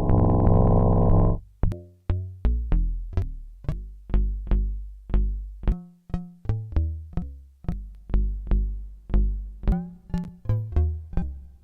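Mutable Instruments Elements clone, a modal-synthesis Eurorack voice, playing electronic music. A sustained, dense tone stops about a second in. Then a run of struck, quickly decaying percussive notes follows at an uneven two to three a second, each with a sharp click on the attack and a deep ringing body.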